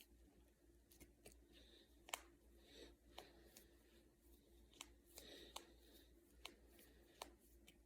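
Finger joints and knuckles cracking: a series of about ten sharp, irregularly spaced pops, the loudest a little over two seconds in.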